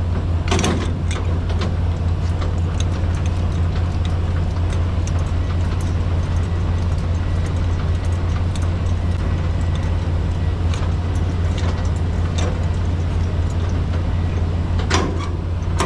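A semi-trailer's landing gear being wound by hand with its crank handle, the gears clicking and rattling, over a steady low diesel engine hum.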